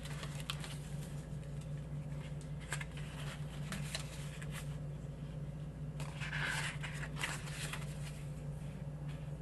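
Pages of a sticker book being turned and handled, with soft paper rustles and light clicks and a louder rustle about six seconds in, over a steady low hum.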